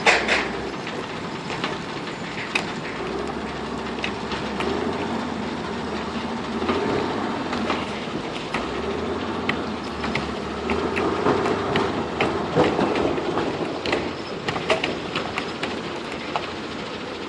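A backhoe loader's diesel engine running under work, with frequent irregular knocks and clatter of stone and gravel.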